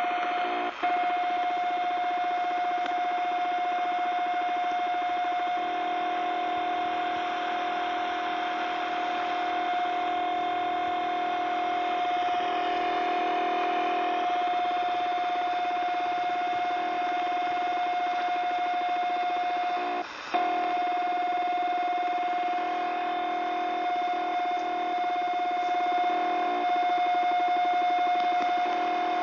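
CB radio receiver on 27.145 MHz putting out an unidentified signal: a steady tone over static hiss, with a lower buzzing tone that keeps switching on and off in an irregular pattern. The signal cuts out for a moment about a second in and again about twenty seconds in.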